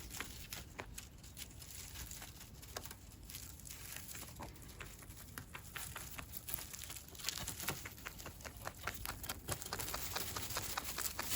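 Rabbit making a run of small, irregular clicks and taps, which grow quicker and denser after about seven seconds.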